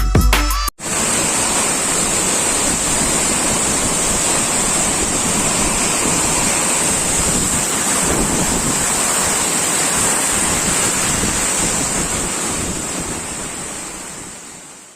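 Steady rush of water pouring down a waterfall, with a thin high hiss running through it; it fades out near the end. A snatch of background music cuts off abruptly under a second in.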